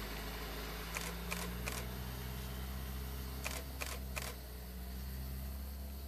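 Camera shutter firing in two quick bursts of three clicks each, about two seconds apart, over a steady low hum.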